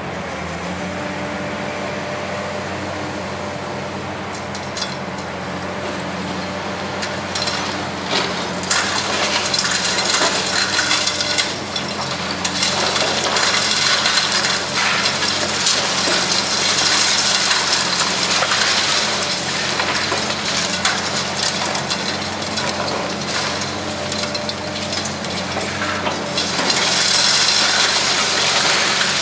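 Hydraulic demolition excavator's engine running steadily while its crusher jaws crunch through reinforced concrete balconies and bend metal railings and rebar, with rubble clattering down. The crunching starts a few seconds in and comes in bouts, loudest near the end.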